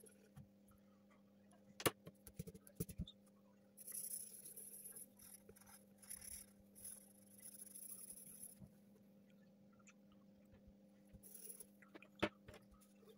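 Faint scratchy rubbing of a pencil on drawing paper during shading, in two stretches, with a few soft clicks and taps about two seconds in and one near the end. A low steady hum sits underneath.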